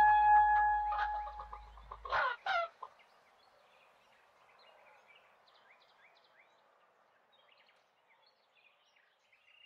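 A held tone dies away, then a cartoon rooster gives two short, loud clucks about two seconds in. Faint, scattered high chirps follow.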